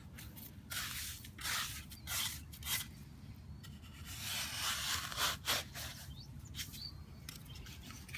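Hand digging tool scraping into sandy soil in a series of short strokes, with a longer stretch of scraping about four to five and a half seconds in.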